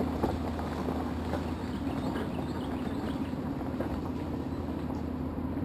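Off-road SUV engine running steadily at low speed during a water crossing, a constant low hum.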